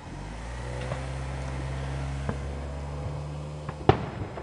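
A vehicle engine running with a steady low hum, then near the end one sharp, loud bang of an aerial firework shell bursting.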